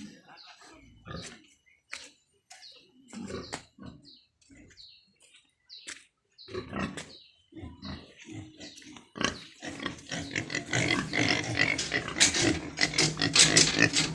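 Pigs on a pig farm calling now and then, then from about ten seconds in many pigs calling at once, loud and continuous.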